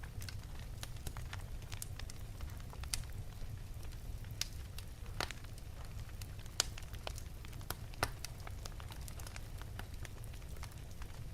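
Fire in an open fireplace crackling: sharp, irregular pops and snaps over a steady low rumble. The loudest pops come about five, six and a half and eight seconds in.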